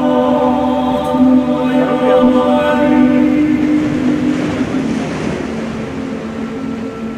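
Choir singing long, held notes without accompaniment, slowly fading toward the end.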